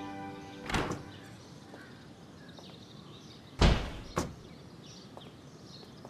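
Knocks of a wooden door: a light knock under a second in, a heavy thud about three and a half seconds in, and a sharper knock half a second after it.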